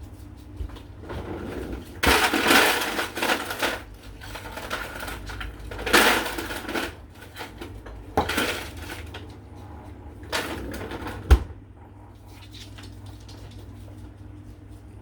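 Ice cubes clattering and rattling in a freezer-compartment ice bin as they are scooped out, in four bursts, with a sharp knock near the end.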